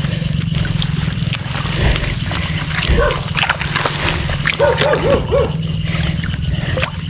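Frogs croaking in short calls, four in quick succession around the middle, over a steady low drone, with wet leaves and mud rustling and clicking as a hand digs into a bullfrog's hole.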